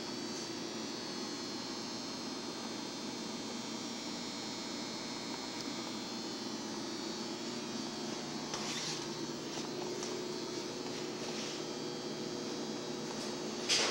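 Steady hum and air noise of equipment-room machinery, with a few brief knocks or rustles, the sharpest near the end.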